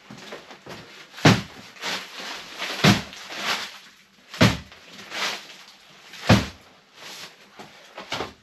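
Heavy paper sacks of sugar dropped one after another onto a stack, four heavy thuds about a second and a half to two seconds apart, with footsteps and softer knocks between them.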